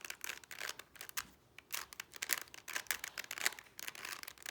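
A 3x3 Rubik's cube being turned by hand. Its plastic layers make quick clicking and scraping sounds, with a brief pause a little over a second in.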